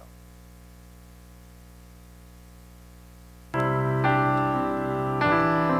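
A low steady hum, then about three and a half seconds in, piano chords start suddenly and ring on, with a new chord struck twice after.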